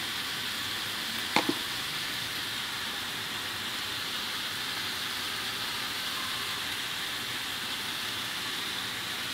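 Food sizzling steadily in a frying pan on the stove, with one short tap about a second and a half in.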